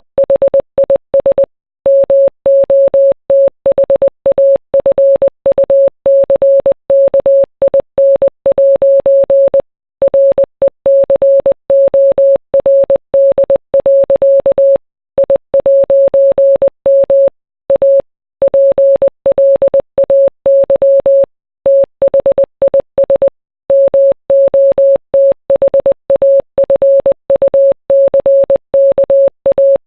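Morse code sent as a single mid-pitched beep tone, keyed rapidly on and off in dots and dashes, with short pauses between letters and longer gaps every few seconds between words.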